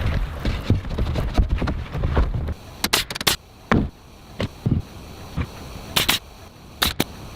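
Irregular knocks and clicks of hand carpentry work on timber, with a low rumble during the first couple of seconds.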